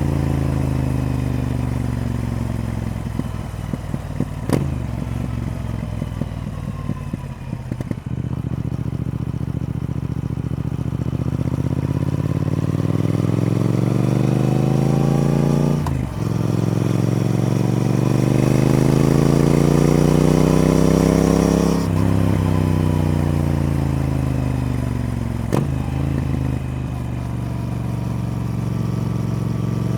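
Triumph Speed Twin parallel-twin motorcycle engine being ridden. The engine note falls away for the first several seconds, then climbs as it accelerates, with sudden drops in pitch about halfway through and again some seconds later, each followed by another climb, as it changes up through the gears. Sharp clicks come at several points.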